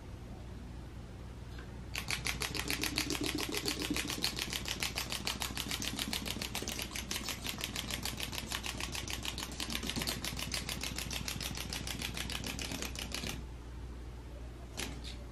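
Small hopping toy bunny's mechanism clicking fast and evenly as it hops along the floor. The clicking starts about two seconds in and stops suddenly near the end, followed by one more faint click.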